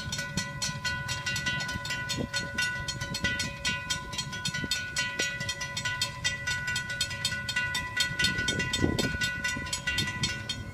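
Railroad grade-crossing bell ringing with rapid, evenly spaced strikes over a steady ring: the crossing is activated and its gates are lowering for an approaching train.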